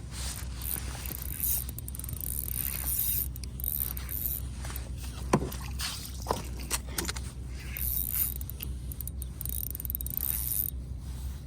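Ice-fishing reel being wound in while a fish is fought: a run of small clicks and rattles with two brief squeaks near the middle, over a steady low hum.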